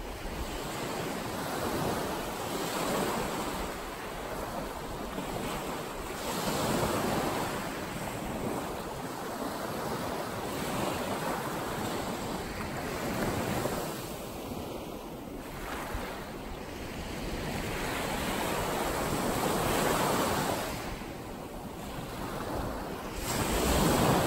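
Small ocean waves breaking and washing up a sandy beach, the surf hiss swelling and easing every few seconds, loudest near the end, with wind rumbling on the microphone.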